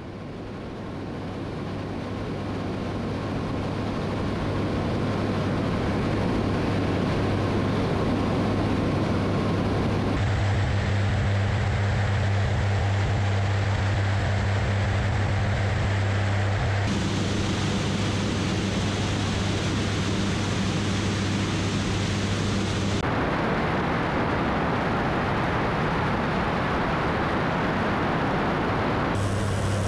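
Pilatus Porter's engine and propeller running steadily in flight, a constant low drone with rushing air noise. It fades in over the first few seconds, and its tone shifts abruptly a few times as the sound switches between cameras mounted at different points on the aircraft.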